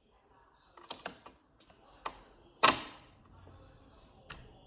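Torque screwdriver turning a CPU socket retention screw: a series of sharp clicks and ticks, with one louder click a little over halfway through.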